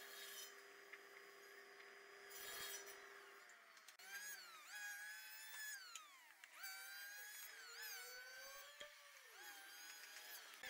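A table saw runs with a steady hum and makes a short cut about two and a half seconds in. About four seconds in it gives way to a corded electric hand planer shaving a board, its motor pitch dropping as the blades bite and rising again as each pass ends.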